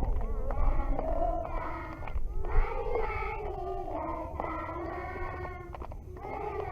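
Several voices singing together, over a steady low rumble.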